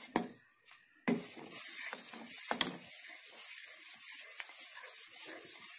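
A metal spoon stirring heating milk in a metal saucepan, scraping and clinking against the pan over a steady hiss, starting about a second in. It is ginger milk for chai, brought to the boil and kept stirred so it does not curdle.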